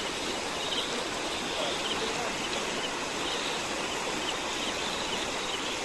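Steady rush of flowing water, with faint short high chirps now and then.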